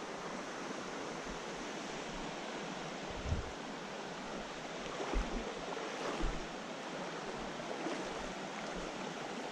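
Steady rush of flowing stream water, with a few dull low thumps around the middle.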